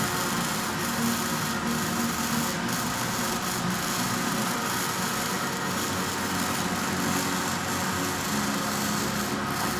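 Electric arc welding: a steady, even crackling hiss from the arc that does not break off.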